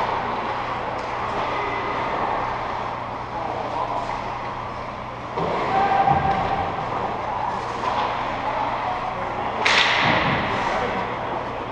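Indoor ice rink ambience: a steady low hum under a noisy echoing haze, with one sharp knock about ten seconds in that rings out through the arena, like a puck or stick hitting the boards.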